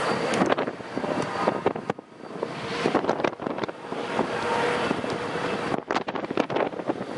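Canadian Pacific diesel locomotives heading a loaded coal train past at slow speed, their engines running, with wind buffeting the microphone.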